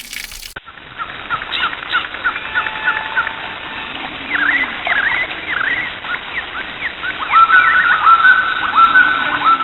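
Birds calling: a run of quick chirps and short sliding notes, then from about seven seconds in a repeated, louder call held at one pitch.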